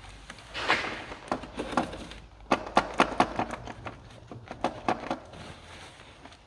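Irregular clicks and knocks of hand tools against car parts while working in an engine bay, with a short rustle about a second in.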